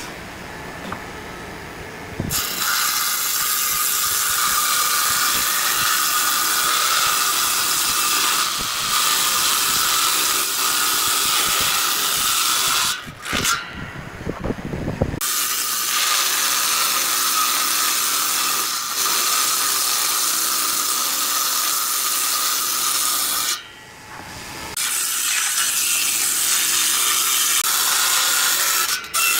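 Circular table saw ripping a wide wooden board: a loud, steady whine over cutting noise. It is quieter for the first two seconds, then breaks off abruptly twice, once about halfway through and again near the end, each time resuming.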